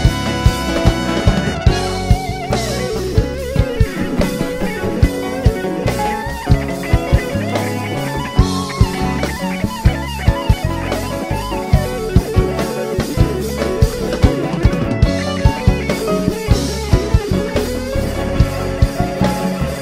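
Live Latin fusion band playing an instrumental passage: an electric guitar carries the lead with gliding, bent notes over drum kit, bass and percussion.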